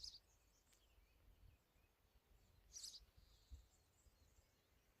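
Near silence outdoors, broken by two brief, high bird chirps: one at the start and one about three seconds in.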